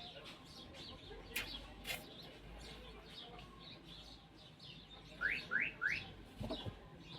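Small bird chirping repeatedly in short, high notes. Past the middle come three quick rising chirps close together, the loudest sounds here.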